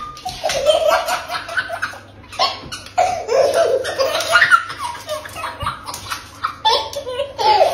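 A toddler laughing hard in several long bursts of high-pitched belly laughter.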